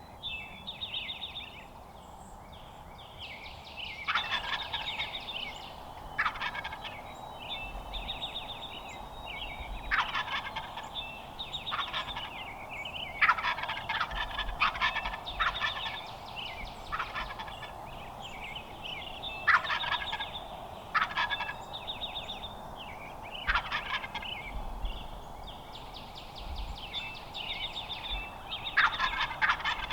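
Wild turkey tom gobbling again and again, well over a dozen rattling gobbles, some loud and close and several in quick succession: a fired-up gobbler answering calls and coming in.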